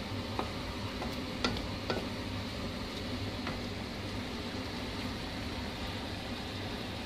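Coconut-milk curry simmering in a wok, a steady bubbling hiss, with a few light clicks of a wooden spatula against the pan in the first two seconds and once more midway.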